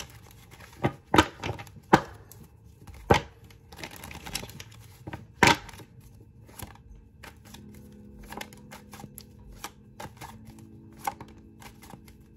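Tarot cards being shuffled and handled: scattered sharp taps, flicks and snaps, the loudest within the first six seconds, then lighter clicks. Faint steady tones come in about halfway.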